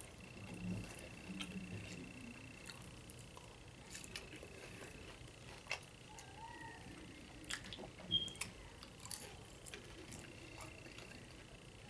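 Close-up eating sounds of a person chewing loaded nachos made with Doritos tortilla chips: faint crunching and wet mouth clicks at irregular moments, with a few sharper crunches in the second half.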